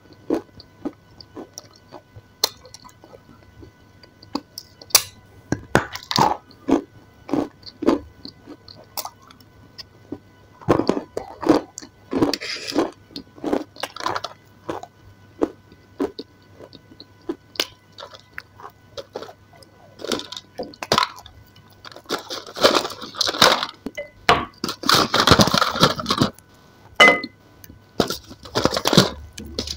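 Close-up mukbang eating and handling sounds: soft food balls picked from a plastic bowl, squished between fingers and chewed. They come as a string of sharp wet clicks and squishes, with denser, louder clusters about a third of the way in and again over the last third.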